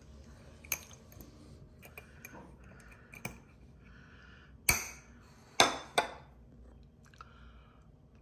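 Glass jars being handled: a few light clicks, then three sharp glass clinks close together about five to six seconds in, as the glass lid and wire clasp of a swing-top jar are closed.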